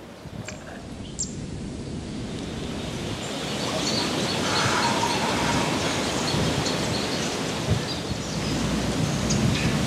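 Wind rushing over the microphone outdoors, a steady noise that grows louder over the first few seconds and then holds, with a few faint high chirps in the middle.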